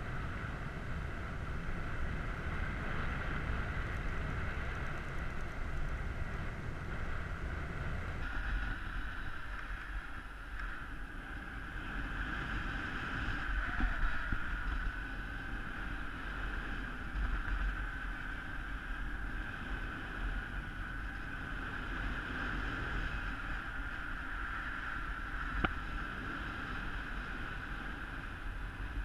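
Wind rushing over an action camera's microphone in paraglider flight: a steady low buffeting with a hissing rush and a faint whistle that wavers in pitch. Near the end there is a single sharp click.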